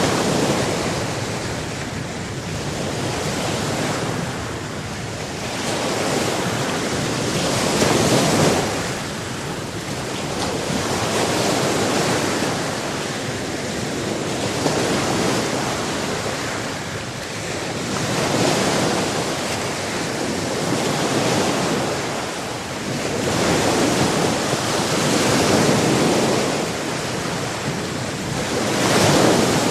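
Sea surf: waves breaking and washing ashore in a steady rush of water noise that swells and falls every few seconds.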